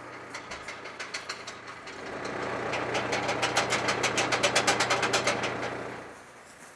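Log winch drum paying out steel cable as it is pulled off by hand, its ratchet clicking: loose, irregular clicks at first, then fast, even clicks about seven a second, stopping about six seconds in. An engine idles underneath with a steady low hum.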